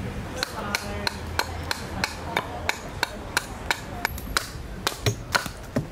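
Carving axe hewing a spalted sycamore cup blank held on a chopping stump: a steady run of quick, sharp chops, about three a second, starting about half a second in.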